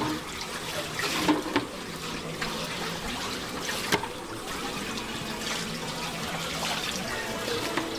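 Water running and splashing in a live lobster holding tank as a hand reaches in to pull lobsters out, with a couple of sharp knocks.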